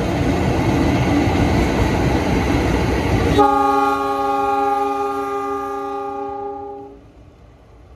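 Two coupled CC 206 diesel-electric locomotives, running light, pass close with a loud, steady rumble of engines and wheels. The rumble cuts off suddenly about three and a half seconds in. A long, steady multi-tone locomotive air horn blast follows, the semboyan 35 signal, held for about three and a half seconds before it stops.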